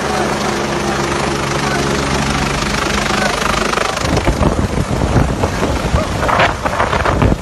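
Helicopter hovering overhead with a steady low hum from its engine and rotor. About four seconds in, a rough, gusty rumble of wind on the microphone takes over, flaring up sharply near the end.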